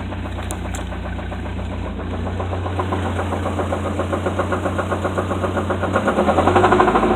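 Car engine with a bad rod knock: a quick, even knocking that grows louder and faster as the engine picks up speed, loudest near the end. The engine is running with no oil, which the driver says.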